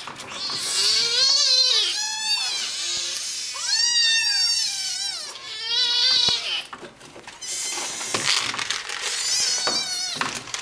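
A litter of young kittens mewing loudly and repeatedly, high overlapping cries that rise and fall, demanding food. About seven seconds in the cries thin out to scuffling noise with a few fainter mews.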